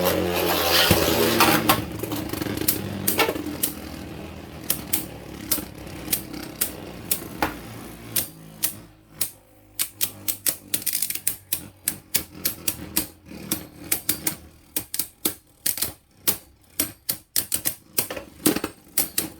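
Beyblade Burst spinning tops launched into a plastic stadium. A rush of whirring at the start fades to a spinning hum, and from about eight seconds in the slowing tops click and clack rapidly as they knock against each other and the stadium.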